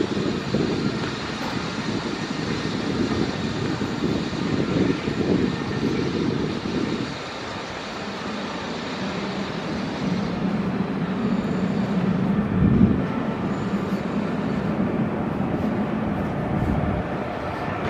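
Continuous roar of city traffic with uneven low rumbling. From about halfway through, a steady hum builds as a Paris Métro line 5 train approaches on the elevated steel viaduct.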